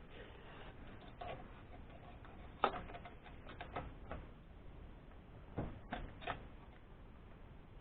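Scattered metallic clicks and knocks of hand tools and parts against a small engine while a starter motor is fitted. The sharpest knock comes about two and a half seconds in, with clusters of clicks just after it and around six seconds.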